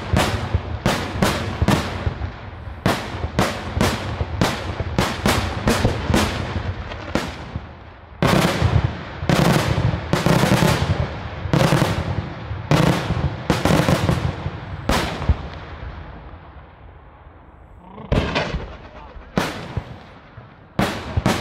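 Daytime fireworks display: a rapid series of loud shell bursts, each bang trailing off in a rolling echo. The bangs come thick and fast, thin out to a lull about three-quarters of the way through, then start again near the end.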